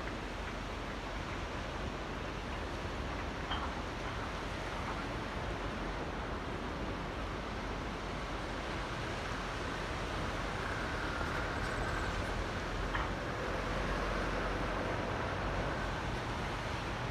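Small ocean waves lapping in a tidal channel: a steady rushing wash of water that swells a little in the second half, with a faint humming tone under it there.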